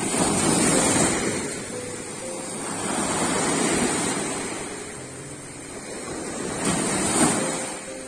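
Small Caspian Sea waves breaking and washing up a sandy beach, the surf swelling and ebbing three times, with a sharp peak near the end.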